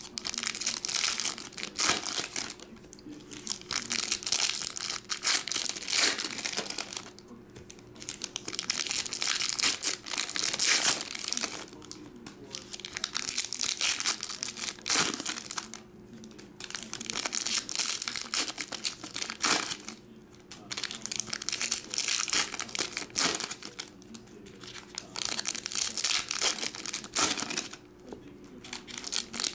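Foil trading-card pack wrappers crinkling as packs are opened and handled, in bursts of a few seconds with short pauses between. A faint steady hum runs underneath.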